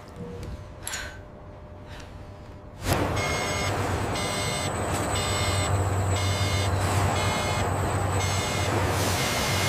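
Machine-like low hum with a repeating high-pitched electronic beeping, both starting about three seconds in.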